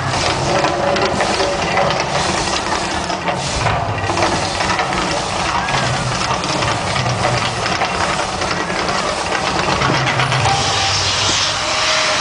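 Mirage volcano attraction erupting: a loud, steady rushing hiss over a low rumble.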